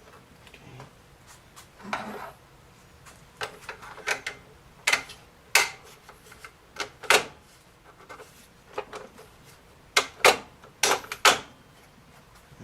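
Plastic and metal parts of a Lyman Revolution gun vise being handled and fitted together: an irregular run of sharp clicks and knocks, some with short scrapes, loudest near the end.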